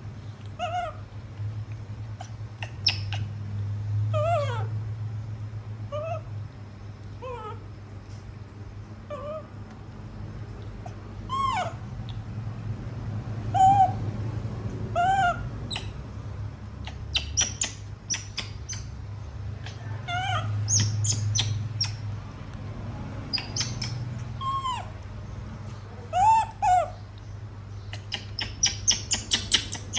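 Baby monkeys giving short, high squeaky calls, each a quick rise and fall in pitch, about one every second, over a low steady hum. Near the end comes a quick run of sharp clicks.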